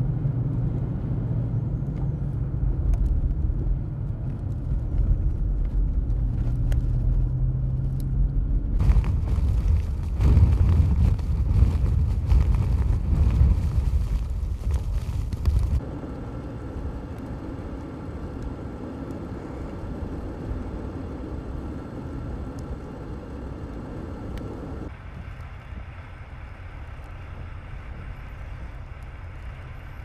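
Vehicle engine and road noise, with a steady low hum, while following a snowplow in a white-out. After about sixteen seconds it gives way to quieter, steady noise of wind blowing across an open road.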